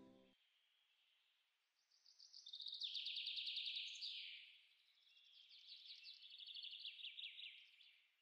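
Faint bird chirping: two runs of rapid high chirps, each lasting about two seconds, the first starting about two seconds in.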